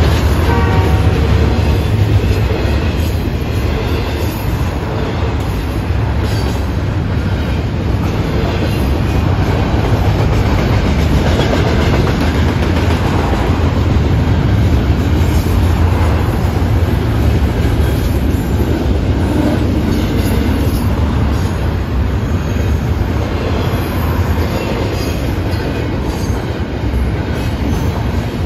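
Double-stack intermodal container freight train rolling through a road crossing: a steady, low rumble of steel wheels on the rails as the loaded well cars pass.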